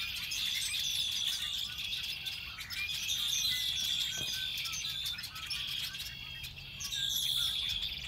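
A large flock of red-winged blackbirds chitter-chattering, many short calls and chirps overlapping without a break.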